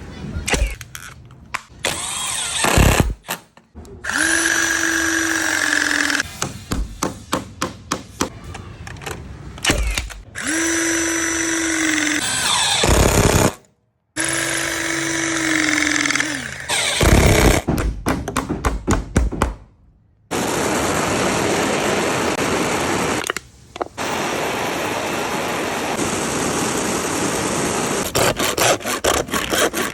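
A power drill runs in three bursts of a few seconds, each winding down in pitch at its end, with runs of rapid clicking in between; the last third is a steady rushing noise.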